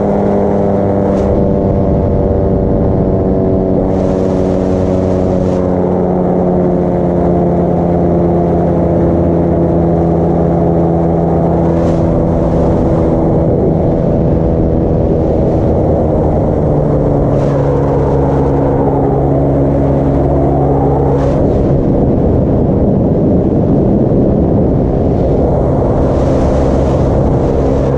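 Paramotor engine running steadily with a droning pitch, which steps down a little about two-thirds of the way through and shifts again shortly after.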